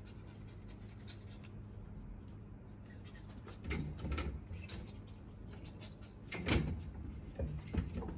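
Short knocks and rattles of a white metal safety gate as a small dog jumps up and climbs it. There is one cluster about four seconds in and more from six and a half seconds to near the end, over a faint steady hum.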